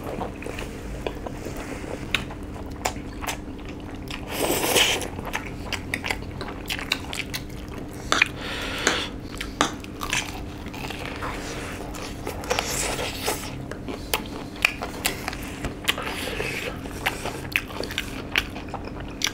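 Close-up eating sounds: crunching bites into crumb-coated fried chicken and chewing, with many sharp crackles from the crisp coating, and noodles being slurped.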